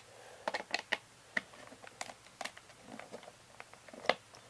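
Light, irregular clicks and taps of a plastic VHS cassette shell being handled, a dozen or so scattered sharp ticks with the loudest about four seconds in.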